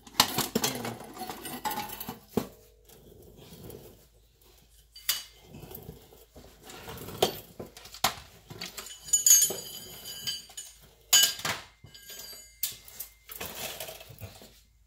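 Metal hand tools and parts clinking and knocking now and then, with a bright ringing clink about nine seconds in.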